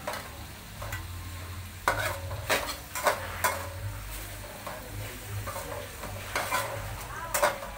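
Metal utensil scraping and clanking against metal cookware, with several sharp clanks that each ring briefly, bunched between about two and three and a half seconds in and again near the end, over a steady low hum.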